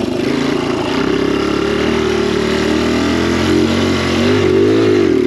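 Kawasaki KLX dirt bike's single-cylinder four-stroke engine running at a steady idle, with a brief rev up and back down near the end. The owner suspects the engine may need a rebuild.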